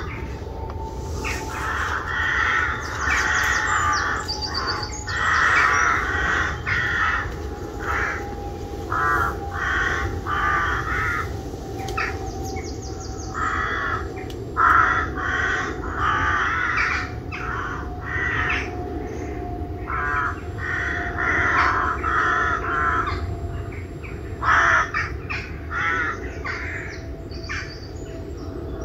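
Crows cawing again and again in the dawn woods, many harsh calls following one another. Behind them a faint steady hum slowly falls in pitch.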